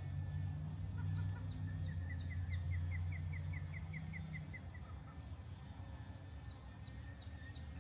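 Osprey calling: a quick series of about a dozen short, rising whistled chirps. Underneath is a low, steady rumble that drops away a little past halfway.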